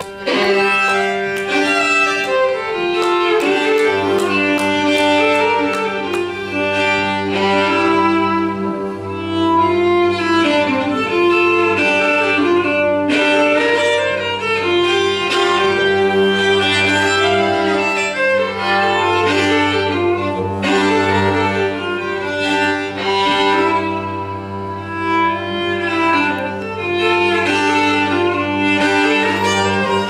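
Two fiddles playing a string-band instrumental tune together over an upright bass that is bowed, holding long low notes beneath the melody.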